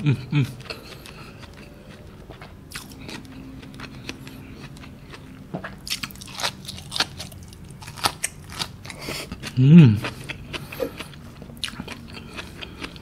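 Close-miked crunching and chewing as raw vegetables and rice are bitten and chewed, a run of crisp crackling clicks. A short voiced hum is heard about ten seconds in, the loudest sound, with a smaller one right at the start.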